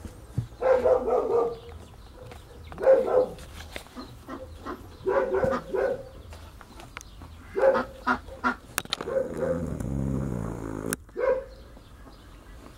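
An animal calling repeatedly in short bursts, one burst about every two seconds.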